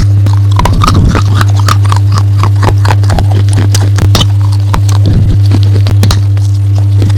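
Close-up crunching of dry clay being bitten and chewed: a dense, irregular run of sharp crisp crunches, over a loud steady low hum.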